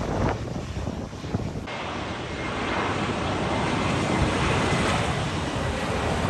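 Jet airliner (an Airbus A321) on low final approach, its engine rush building gradually as it comes nearer, with wind buffeting the microphone.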